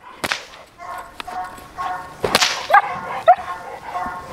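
Training whip cracking twice during bite-work agitation, the second crack the louder, about two and a half seconds in. Between the cracks a Dutch Shepherd on the leash barks and whines.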